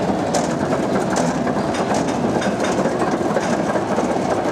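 Vekoma steel roller coaster train climbing the chain lift hill: a steady mechanical clatter of the lift chain with a rapid run of clicks from the anti-rollback dogs.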